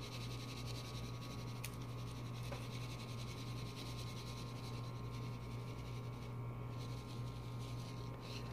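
Steady low hum with a faint even hiss, a quiet room tone like a running fan or appliance, with one faint tick about one and a half seconds in.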